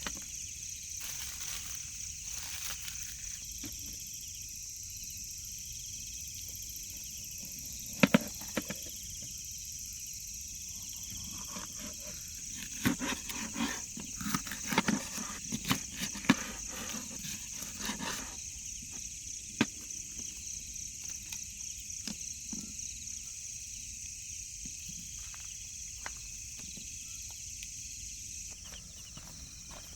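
A steady, high-pitched outdoor insect drone, with a few sharp knocks and clicks of things being handled about 8 seconds in and a busier cluster of them a few seconds later.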